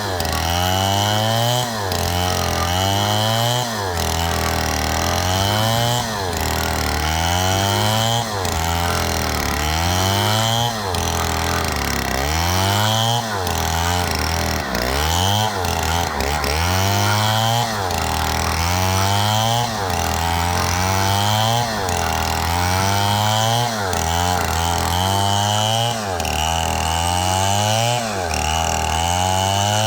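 Two-stroke chainsaw cutting into a palm trunk, its engine rising in pitch and then dropping back in a regular cycle about every two seconds.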